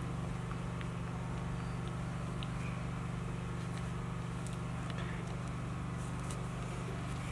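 A steady low mechanical hum that does not change, with a few faint small clicks over it.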